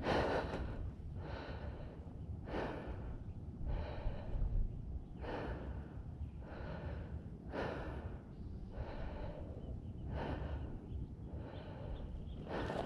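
Mountain biker breathing hard and evenly, about one heavy breath every 1.3 seconds: out of breath from climbing the trail.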